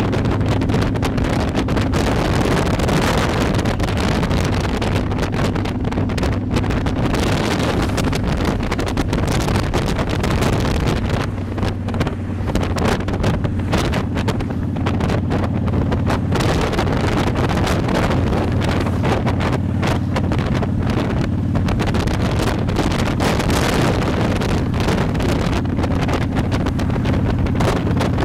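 Wind buffeting the microphone on a moving motorcycle, over the steady note of the motorcycle's engine running at cruising speed. The engine note eases briefly about twelve seconds in, then picks up again.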